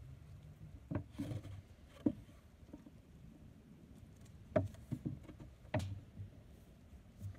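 Scattered wooden knocks and clunks from a homemade plywood box trap as its drop door is raised on a cord and its wooden lever stick is set, about half a dozen irregular taps, the sharpest near the middle and about six seconds in.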